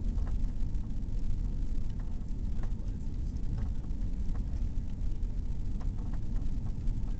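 Airbus A340-600 cabin noise on final approach: a steady low rumble of airflow and engines heard from inside the cabin, with a few faint clicks.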